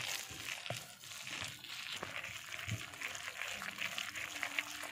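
Gram-flour and fenugreek batter being mixed by hand in a bowl after water has been added: an irregular wet rustling with small soft knocks.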